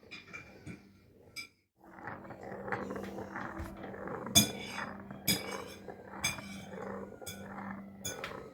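Glass marble rattling and clicking in a turned walnut dish as kittens bat it about. There are sharp clicks roughly once a second over a steady low rumble.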